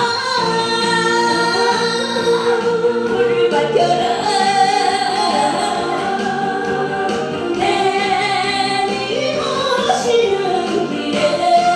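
A woman singing a Korean song into a handheld microphone over amplified backing music, holding long notes with vibrato.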